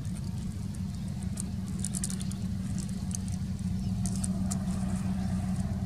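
A steady low rumble with a hum in it, with scattered faint high ticks from about one and a half to four and a half seconds in.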